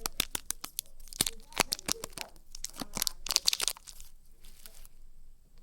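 A Dairy Milk chocolate wrapper crinkling and tearing in quick bursts of crackles, which stop near the end.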